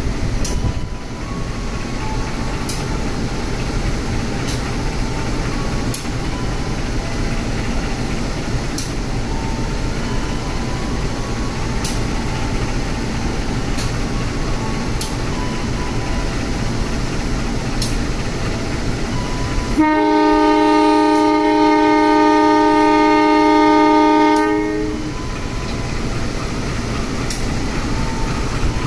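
Passenger train standing with its diesel engines running in a steady rumble; about twenty seconds in, the locomotive's horn sounds one long blast of several tones held for about four and a half seconds, the horn signal before departure.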